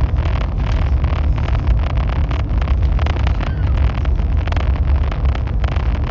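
High-speed train running at speed: a steady, loud low rumble with constant crackling over it.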